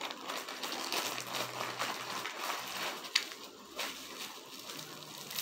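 A plastic zip-top bag and bubble wrap crinkling and rustling as they are handled and pulled open. The rustle is full of small crackles, with a sharper click a little past halfway.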